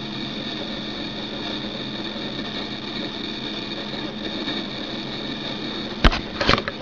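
An eMac G4 running while it installs: a steady mechanical hum carrying a few fixed whining tones. Two sharp knocks come near the end.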